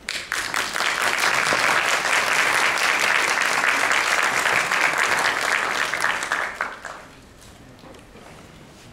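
Audience applauding, starting at once and dying away after about seven seconds.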